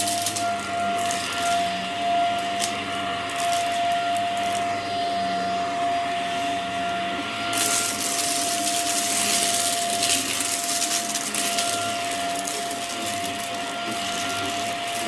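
Hoover vacuum cleaner running over a rug, a steady motor whine under a gritty crunching as the brush roll picks up debris. The crunching gets louder and brighter about halfway through.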